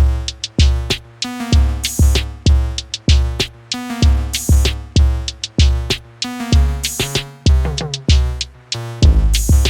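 Background music: an electronic track with a drum-machine beat, heavy bass kicks about every half second and synth notes over it.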